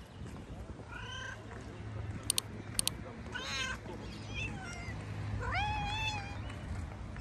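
A hungry ginger stray cat meowing: four meows, each rising then falling in pitch, the last near the end the longest and loudest. Two sharp clicks come in the middle.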